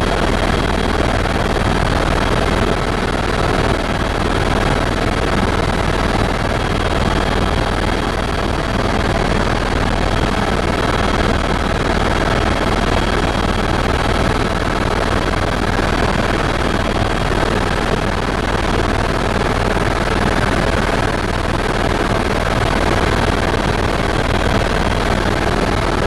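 Tour helicopter in steady cruise flight heard from inside the cabin: a loud, even rush of engine, rotor and transmission noise, with faint steady whining tones over it.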